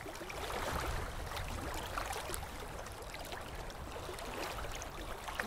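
Faint, steady trickle of running water with small scattered ticks.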